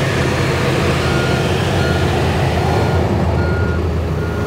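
The Johnston VT650 road sweeper's auxiliary donkey engine running steadily, a low drone with hiss over it, while a warning beeper gives short high beeps roughly once a second. About three seconds in the upper hiss dies down as the engine's resealed sound-proofing enclosure drops shut.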